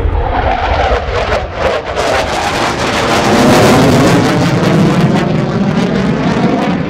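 Mitsubishi F-15J Eagle's twin F100 turbofan engines as the jet pulls up into a steep climb and moves away: loud rushing jet noise full of rapid crackles, loudest about halfway through.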